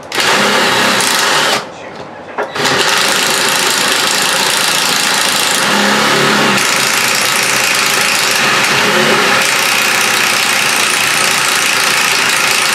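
Cordless impact driver hammering on the nut of a toilet floor bolt: a short burst, a pause of about a second, then one long continuous run. The nut will not come off, so the bolt will have to be cut.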